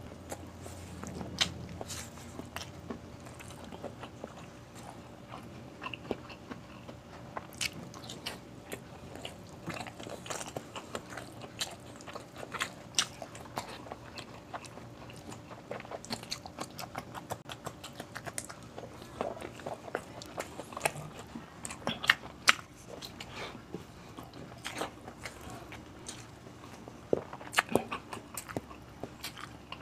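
A person chewing and smacking their lips while eating beef stew and rice by hand: a steady run of short wet mouth clicks, with a few louder smacks near the end.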